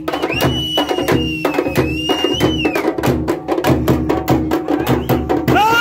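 Traditional folk drumming: a drum ensemble beating a fast, steady rhythm of sharp strokes. A shrill held pitch sounds over it from just after the start to about three seconds in, and short swooping pitches come near the end.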